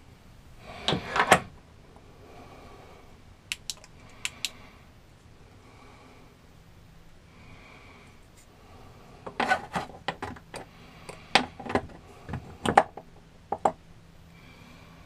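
Handling knocks and clicks of small flashlights being handled and set down on the wooden ledge of a cramped compartment. A cluster of knocks about a second in, three sharp clicks around four seconds in, then a run of knocks and taps in the last few seconds.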